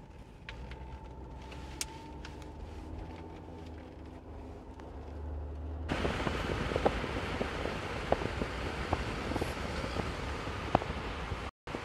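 Car cabin road noise: a low steady rumble of engine and tyres, then about six seconds in a sudden louder rush of wind and road noise with crackles of wind on the microphone. The sound drops out for an instant near the end.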